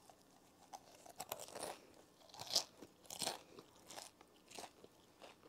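Crunchy loaded tortilla-chip nacho being bitten and chewed: irregular crisp crunches, loudest about halfway through.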